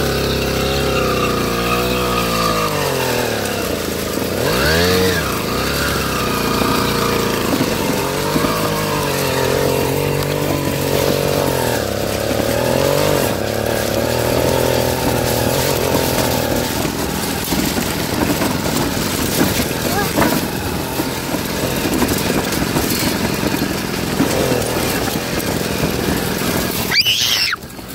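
Small engine of a motorized bicycle running, its pitch rising and falling with the throttle over the first half, then running steadier. There is a short disturbance near the end.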